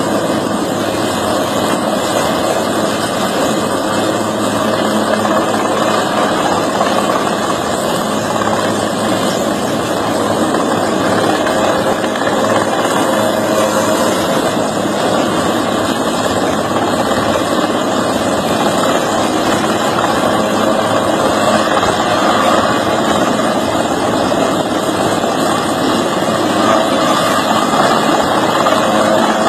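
An engine running loudly and steadily without a break.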